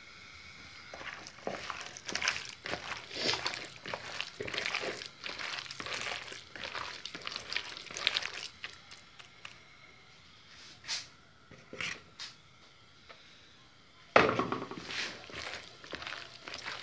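A hand squishing and mixing wet besan (gram-flour) batter through sliced potatoes and onions in a bowl: irregular wet squelches and clicks, louder for the last few seconds.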